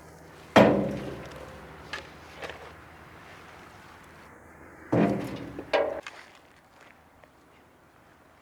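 Sharp knocks: two loud thuds about four seconds apart, each with a short ringing tail, and a few lighter knocks between and after them.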